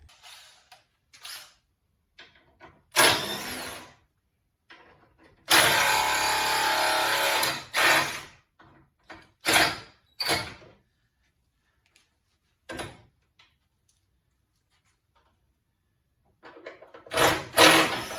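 A handheld power driver runs for about two seconds, amid scattered short knocks and rattles of parts being worked loose from the front of a pickup truck.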